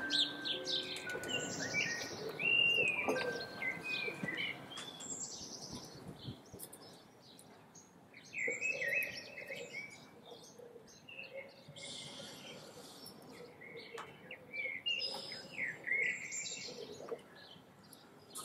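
Songbirds calling and singing: short chirps and quick rising and falling whistles, with a few faint clicks in between.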